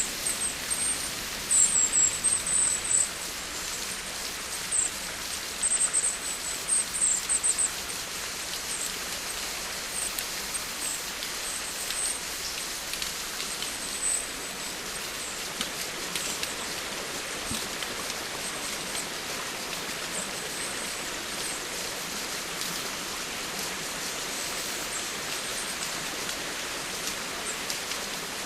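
Steady rain falling, an even hiss with scattered drop ticks. Two clusters of short, very high chirps stand out over it in the first eight seconds.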